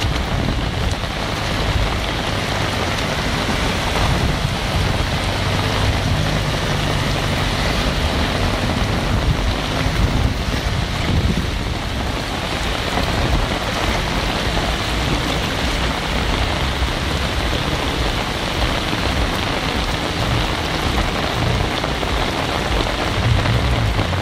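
Heavy rain pouring steadily onto a flooded street, with cars driving through the running floodwater and a low rumble underneath.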